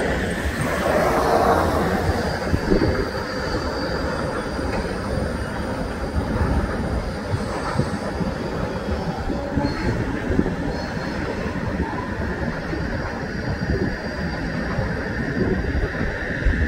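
Freight cars of a Canadian National manifest train rolling along the rails with a steady rumble, with faint high-pitched wheel squeal now and then.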